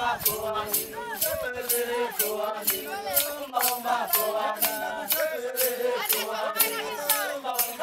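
A group of voices singing a chant together over a steady, sharp rattling beat at about three strokes a second, accompanying a line dance.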